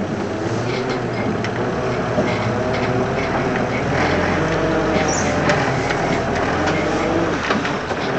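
Land Rover Series IIA short-wheelbase's 2.25-litre four-cylinder petrol engine running under way off-road, heard from inside the vehicle, its note rising a little about halfway through. Short knocks and rattles from the vehicle come through as it drives over rough, rutted ground.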